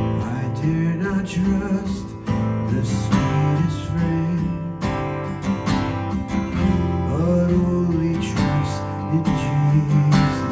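Instrumental music with strummed acoustic guitar chords.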